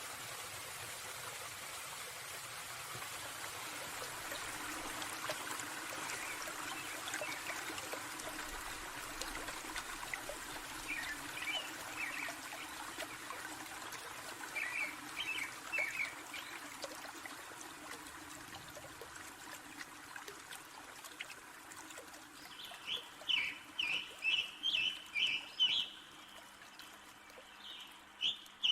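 Forest ambience: a steady trickle of running water with scattered bird chirps. Near the end a bird calls in a quick series of repeated notes, about three a second.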